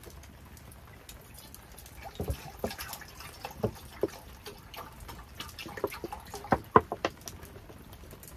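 Water dripping and splashing, with irregular light taps and knocks; a few sharper knocks come about six and a half seconds in.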